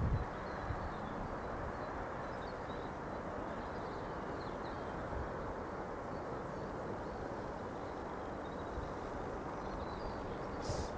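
Steady outdoor background noise with wind buffeting the microphone and faint bird chirps scattered through. A brief rustle comes near the end.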